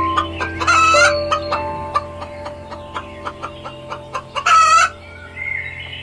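Rooster giving two short, loud calls, about a second in and again near the end, over light background music.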